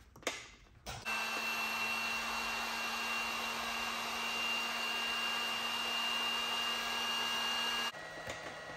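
A few clicks, then an electric heat gun blowing steadily while it shrinks heat-shrink tubing over crimped butt connectors on a wiring harness. Near the end it drops to a quieter, lower steady hum.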